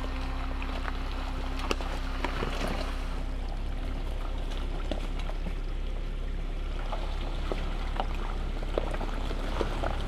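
Jeep Wrangler crawling slowly over a wet, rocky trail. The engine runs low and steady under a noisy haze, and scattered sharp clicks come from stones cracking under the tyres.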